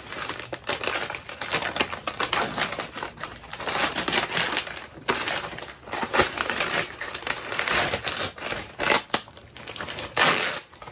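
Packaging crinkling and rustling as it is handled and unwrapped by hand, in uneven crackly bursts with several sharper crackles.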